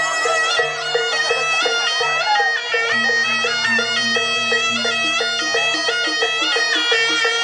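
Jaranan Buto music: a slompret, a shrill double-reed shawm, plays a stepping melody over a steady, evenly repeated percussion beat of drums and gong chimes.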